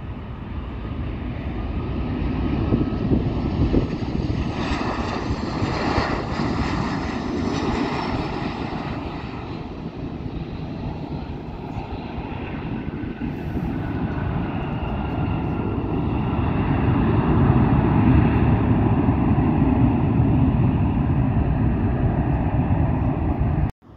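Boeing 737-700's CFM56-7B jet engines passing low on landing approach, the roar swelling a few seconds in and then fading. A deeper, louder rumble builds again in the second half as the jet rolls out on the runway, ending abruptly near the end.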